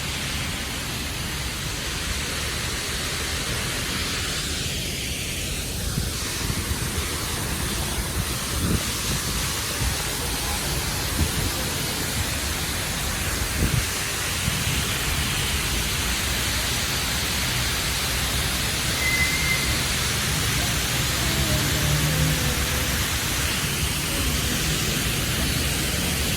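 Steady, continuous rush of falling water from a waterfall, an even hiss with no breaks.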